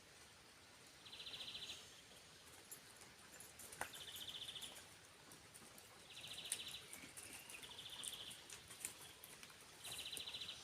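A bird repeating a short, high, rapid trill five times, about every two seconds, over a faint steady background hiss.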